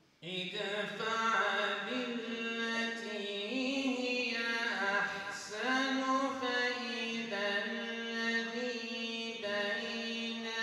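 A man reciting the Quran in Arabic in a slow melodic chant, holding long notes that rise and fall between steps.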